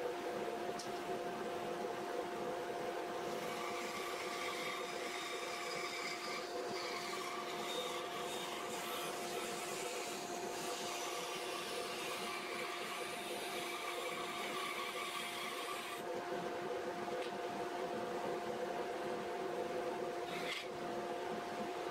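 Rikon bandsaw with a variable-speed DVR motor running steadily, its 6-tooth skip blade cutting a 2x4 wood blank, under the constant hum of dust extraction drawing through the saw's hose.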